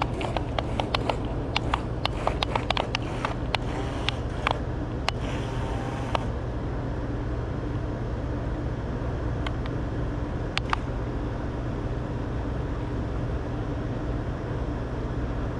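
Steady hum of a remote control boat's motor running, with a scatter of sharp clicks and taps during the first six seconds.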